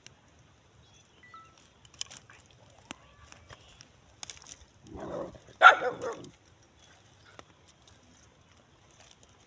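A dog barks once about halfway through, a drawn-out bark in two parts. A few sharp snaps of dry twigs come before it.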